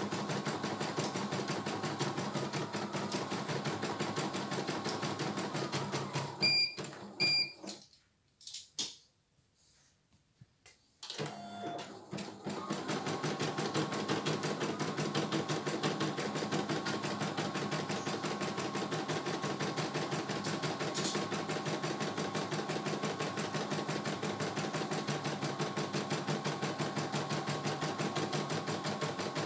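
CNY E900 computerized embroidery machine stitching at a fast, steady rhythm. About six seconds in it stops with two short beeps and falls quiet for a few seconds, then starts stitching again.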